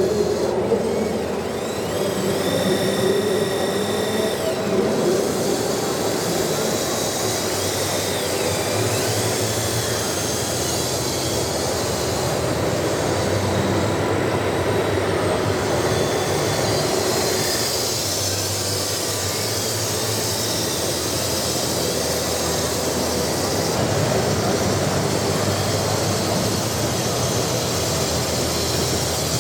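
Large-scale RC construction machines running, their electric drive and hydraulic pump motors giving a steady mechanical whine, with rising and falling whines in the first few seconds as they work.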